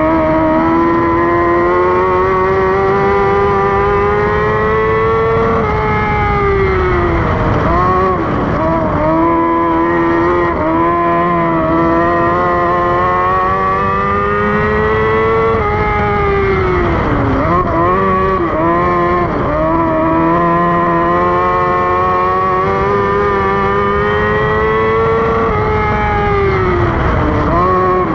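A dwarf race car's high-revving motorcycle-based engine, heard on board at full race pace. The revs climb steadily down each straight, then fall sharply as the driver lifts into the corners, about a third and two thirds of the way through and again near the end. They come back up in uneven surges as he gets on the throttle out of each turn.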